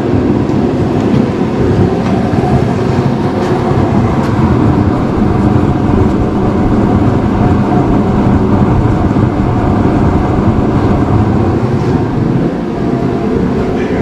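Large propane space heater running: a loud, steady noise that holds level throughout.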